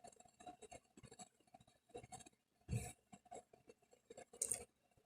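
Faint handling sounds of a coin being turned and held: scattered small clicks and taps, with two slightly louder brief sounds about three and four and a half seconds in.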